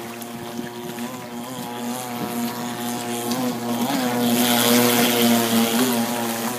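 The 26cc two-stroke gas engine of a 51-inch radio-controlled speedboat running at speed with a steady, slightly wavering note. It grows louder from about four seconds in as the boat passes close, with a hiss of spray.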